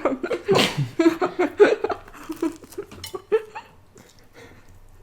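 A woman's voice laughing and making short wordless vocal sounds, tailing off to quiet after about three and a half seconds.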